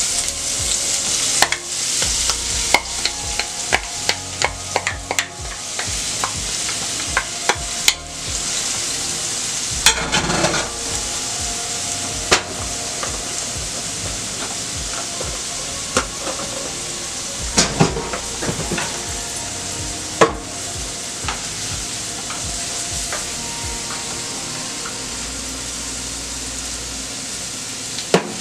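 Chopped seasonings (scallion, thyme, onion, garlic, pepper) sizzling steadily in hot oil in a frying pan. A wooden spoon stirring them clicks and knocks against the pan, often in the first several seconds and now and then after that.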